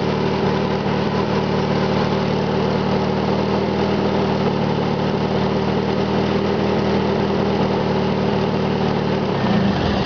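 Toyota MR2 engine idling steadily, with an intermittent knocking that comes and goes. The engine winds down and stops at the very end.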